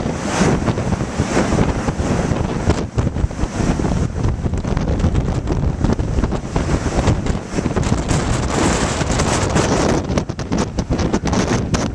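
Blizzard wind gusting hard against the microphone: a loud, steady rush with constant low buffeting.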